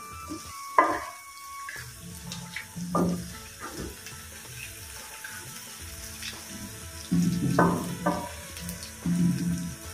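Wooden spatula stirring and scraping sangri around a steel kadai, with a few louder scrapes spread through and a faint sizzle underneath.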